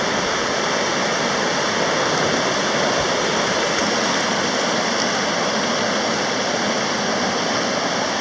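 Steady rushing of river water over whitewater rapids, an even, unbroken noise.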